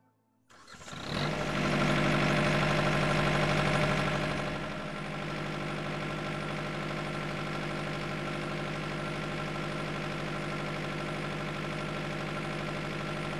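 Small engine of a portable power sprayer running steadily. It comes in about half a second in, runs louder for the first few seconds, then settles a little lower and holds an even pitch.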